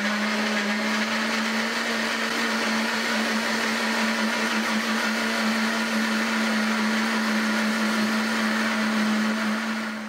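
Britânia 600 W blender running steadily on its lowest speed (speed 1), blending sliced banana with milk. The motor holds one even hum under a steady whir of the blades and the liquid.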